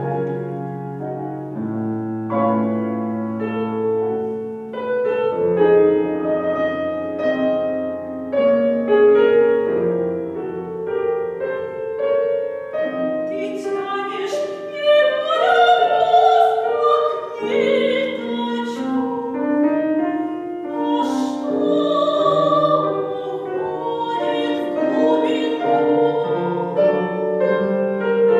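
Live chamber-opera music: piano and strings playing slow held chords, joined about halfway through by an operatic voice singing with vibrato.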